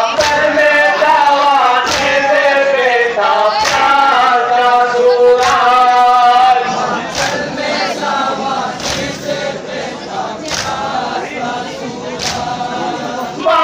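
A large group of men chanting a Muharram nauha in unison, with a sharp slap of synchronized chest-beating (matam) landing about every 1.7 seconds. The chanting is louder in the first half and eases off toward the end.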